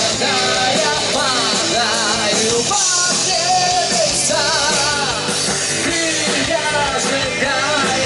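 Loud rock music with a singer's voice carrying the melody over the band, with a wavering vibrato on the held notes.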